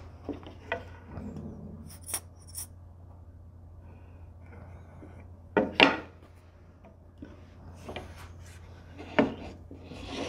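Lengths of wooden picture-frame moulding handled on a workbench: scattered knocks, clicks and rubs as the mitered pieces are slid and pressed together at the corners, the loudest knocks about six and nine seconds in. A low steady hum lies underneath.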